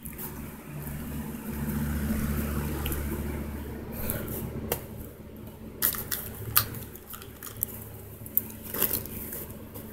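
Thunderstorm heard from inside a house: rain and wind with a low rumble that swells about a second in and eases off, then scattered sharp taps and clicks.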